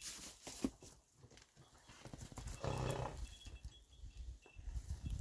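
Horses moving about, hooves knocking on the ground, with a short animal call about two and a half seconds in.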